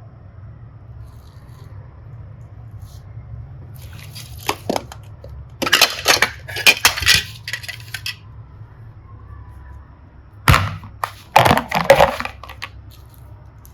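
Small hard objects clicking and clattering in two clusters of sharp taps, the first starting about four seconds in and the second about ten seconds in, over a low steady hum.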